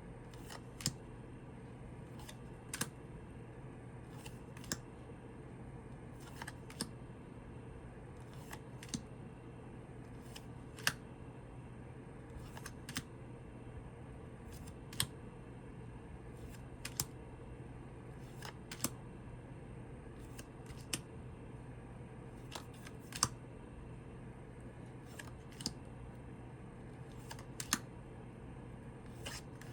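Tarot cards being handled and flipped one at a time, each card making a short crisp click or snap about every two seconds, over a steady low room hum.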